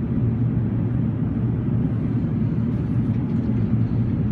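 Steady low rumble of engine and airflow noise inside the upper-deck cabin of an Airbus A380, with a fainter hiss above it.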